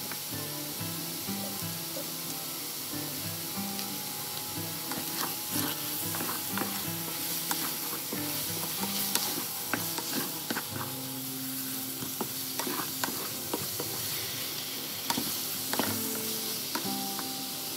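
Cubes of pork sizzling as they brown in oil in a nonstick frying pan, with the clicks and scrapes of a spatula against the pan as the meat is stirred, more often from about five seconds in.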